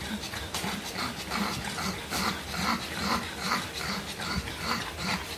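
Newborn pug puppy crying in short, repeated squeaky cries, about two or three a second, starting about a second in, while it is rubbed dry with paper.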